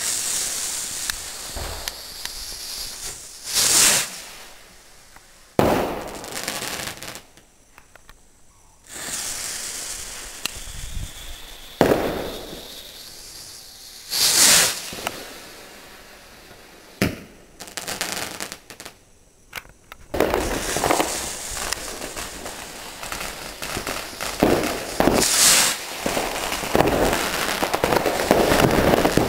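Firework rockets launching one after another, each going off with a loud hiss as it lifts, three times in all. Between launches come sharp bangs, and a dense run of crackling bangs fills the last third.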